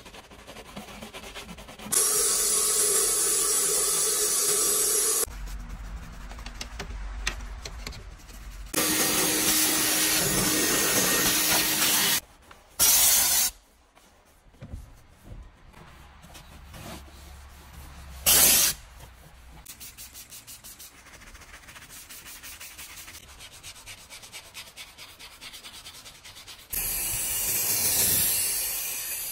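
Car-interior cleaning sounds in a series: a detailing brush scrubbing foam on the bare metal floor pan in quick strokes, long hissing blasts from a steam cleaner, and a microfiber cloth rubbing in quick, even strokes. Near the end comes a loud hiss of spraying foam that swells and fades.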